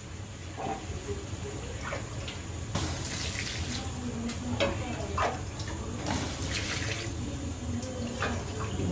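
Water being poured into a large metal pot of rice and carrots, a steady splashing rush that starts about three seconds in and surges again a few seconds later. This is the cooking water going in over the rice for the biryani.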